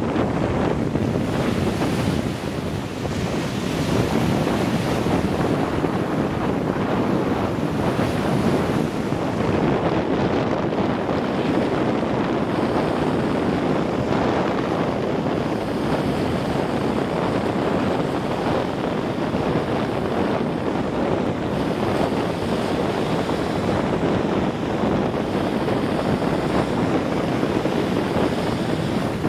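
Small Lake Michigan waves breaking and washing up on a sandy shore, a steady rushing surf, with wind buffeting the microphone.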